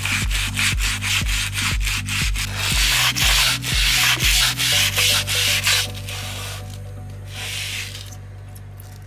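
A small hand brush scrubbing grime out of a window track in brisk back-and-forth strokes. The strokes ease off after about six seconds, with one last short burst near the end. Background music with a steady beat plays underneath.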